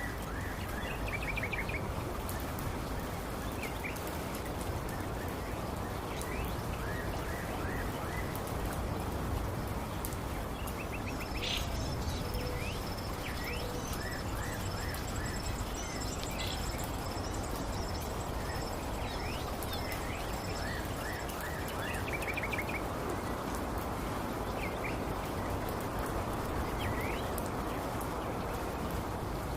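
Outdoor ambience of birds chirping in short repeated series over a steady rushing background noise, with a high, even, pulsing note held for about ten seconds in the middle.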